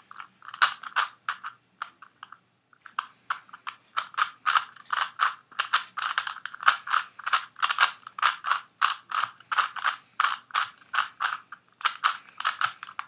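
Rubik's 3x3 Cube being twisted by hand: its plastic layers clack round in quick turns, about three or four a second, with a brief pause about two seconds in.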